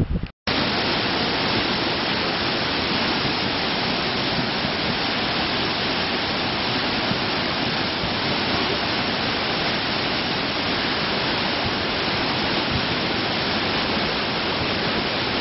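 Waterfall rushing: a steady, unbroken wash of falling water that cuts in abruptly just after the start.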